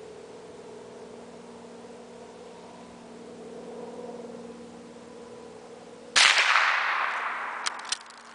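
Davey Crickett single-shot bolt-action .22 LR rifle firing once about six seconds in: a sharp crack that rings out and fades over about a second and a half. Two small metallic clicks follow as the bolt is worked.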